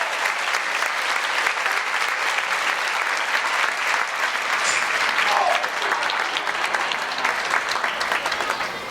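Audience applauding steadily, dense clapping with a few voices calling out.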